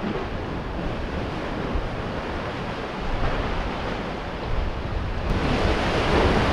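Sea waves washing against concrete wave-breaking blocks, with wind buffeting the microphone; a louder wash of surf builds about five seconds in.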